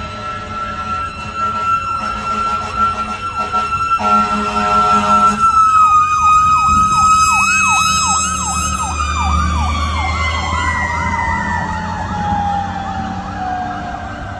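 A Sutphen fire engine's mechanical Q siren holds a steady high whine, then winds down in pitch over the last few seconds. An electronic siren sweeps over it in quick repeating yelps. An air horn sounds for about a second and a half around four seconds in, and a truck engine rumbles underneath as it passes.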